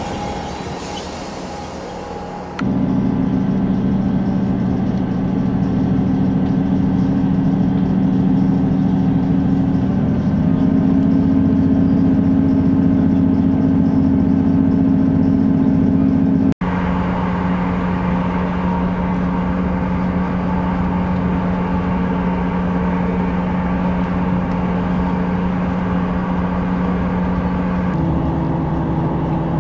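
Steady drone of a diesel multiple-unit train heard from inside the carriage while it runs along, with held low engine tones and running noise. The drone starts abruptly a couple of seconds in, after a quieter moment on a station platform. It breaks off abruptly twice later, and its pitch shifts at each break.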